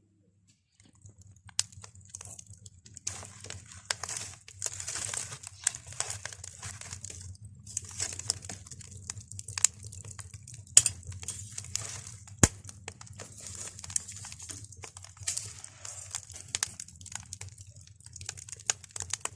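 Wood kindling catching fire in a traditional bread oven, crackling irregularly with sharp pops and bursts of hiss. A steady low hum runs beneath.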